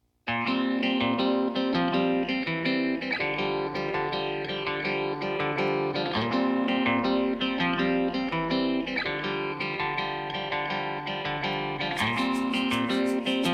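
Background music led by plucked guitar, starting abruptly a moment in; a fast, even, high ticking percussion joins near the end.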